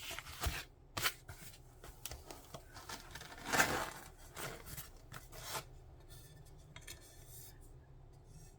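Sheets of stained glass and their packaging being handled: a scatter of light clicks and short scrapes, with one longer, louder scrape about three and a half seconds in.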